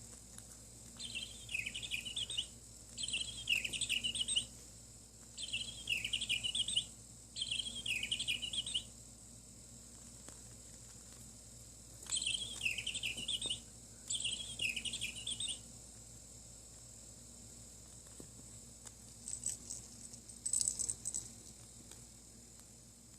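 Bird-like chirping in repeated warbling bursts of about a second and a half: four in a row, then two more after a pause, and a few shorter, higher chirps near the end.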